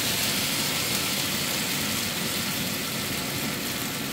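Chicken pieces and freshly poured sauce sizzling steadily in a hot frying pan.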